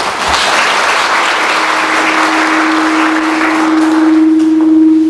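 Audience applauding. About a second and a half in, a single steady tone comes in under the clapping and grows louder toward the end.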